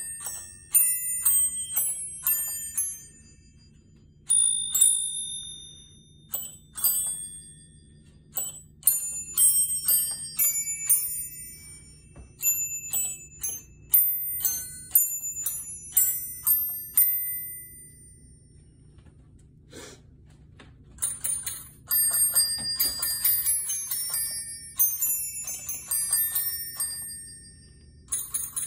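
Christmas bell chime set: small brass bells hanging on a chain, struck in turn to ring out a Christmas tune note by note. The tune falls quiet for a few seconds past the middle, then comes back as a busier run of overlapping bell notes, with a faint low hum underneath.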